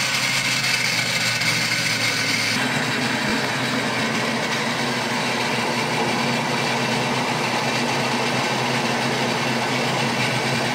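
Countertop blender motor running steadily, puréeing boiled potatoes, sautéed leek and cooking water into a smooth cream. Its tone changes about two and a half seconds in.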